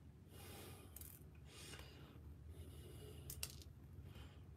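Faint rattling and scraping of small plastic diamond painting drills in a plastic drill tray, in several short bursts, with a sharp click about three and a half seconds in.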